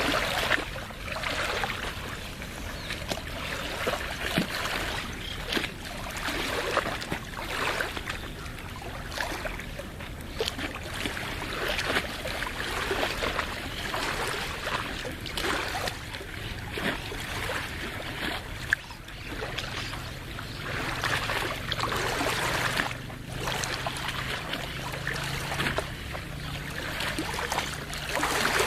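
Lagoon water lapping and splashing irregularly at the shore in small waves. A faint steady low hum comes in about two-thirds of the way through.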